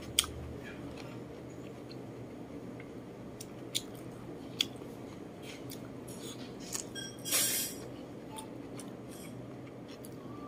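Close-up eating sounds: sharp mouth clicks and chewing as ginger-braised chicken is picked up by hand and eaten, with one louder noise lasting about half a second near the end, over a steady low hum.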